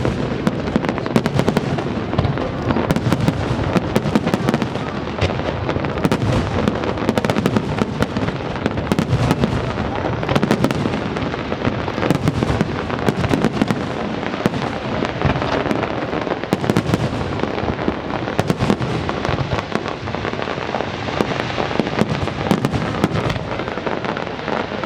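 Fireworks display: a continuous dense crackle of many small bursts, several a second, over a steady low rumble of shell bursts.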